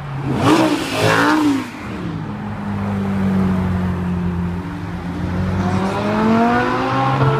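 Supercar engines, among them a Ferrari 458's V8, as the cars drive past. There is a sharp rev that rises and falls about half a second in, then a steady engine note, then a climbing engine note as a car accelerates away near the end.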